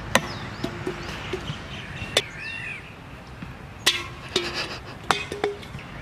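A few sharp knocks at uneven intervals, some with a short ring after them, with a bird chirping briefly about two seconds in.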